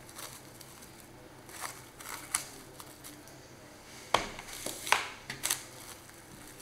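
Plastic cling film crinkling and crackling as hands press it onto the surface of curd in a glass bowl and smooth it around the rim. It comes as a handful of short, sharp crackles, the loudest about four and five seconds in.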